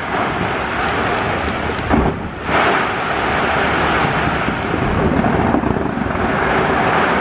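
Taipei 101's New Year fireworks going off in a continuous rolling rumble of bangs, with a few sharp cracks and one louder bang about two seconds in.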